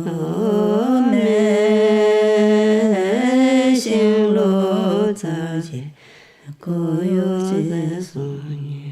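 A voice singing a slow, chant-like melody in long held notes that step between a few pitches. There is a short pause about six seconds in, and it ends on a lower held note.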